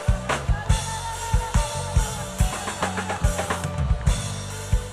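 Band music with a steady kick-drum beat, bass and guitar.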